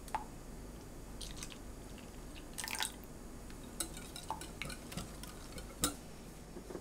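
Milk pouring into a glass bowl of egg mixture for a moment, then a wire whisk stirring the batter and clicking and scraping against the glass bowl in short irregular taps, with one sharp clink near the end.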